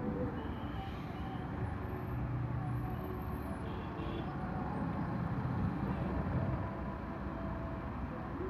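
Steady low rumble of road traffic and idling engines, heard from inside a car standing in a traffic queue.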